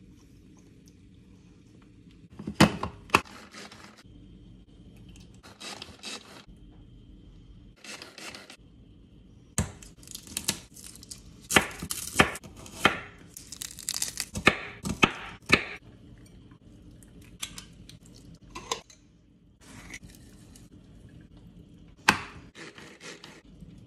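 Kitchen knife chopping a shallot on a wooden cutting board: irregular sharp strikes in short clusters, densest around the middle. A single sharp knock near the end as the lid of a small plastic food chopper is pressed on.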